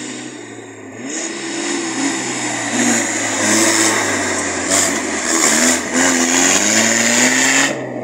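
4x4 SUV engine revving up and down under load as it climbs a rutted dirt track, with a dense rushing noise over it.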